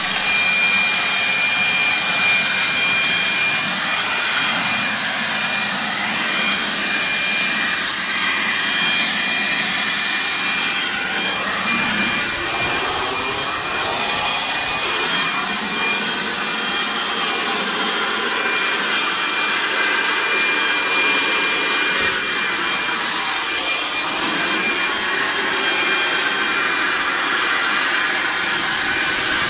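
A running motor with a loud, steady rushing of air and a constant high whine, starting abruptly.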